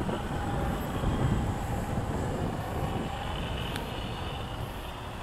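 Wind buffeting the microphone in a low rumble that eases slowly, with the faint whine of an electric radio-controlled model plane's motor and propeller flying overhead.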